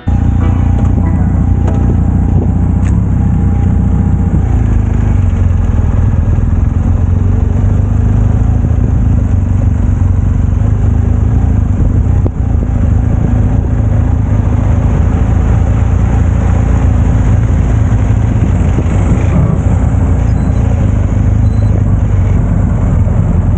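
Motorcycle engine running steadily under way, loud and low, with a brief dip in loudness about twelve seconds in.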